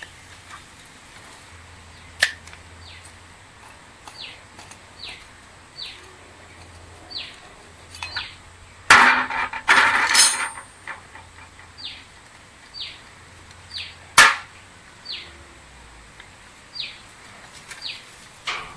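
Sharp metal clinks and a brief rattling clatter about nine seconds in as a scooter starter motor is unbolted and taken apart by hand with a nut driver. Behind it a bird repeats short chirps that fall in pitch, about one a second.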